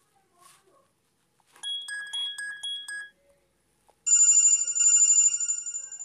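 Android stock ringtones previewing on the phone: about a second and a half in, a short run of chiming electronic notes, then about four seconds in a louder, bright, steady ringing of several pitches that cuts off near the end.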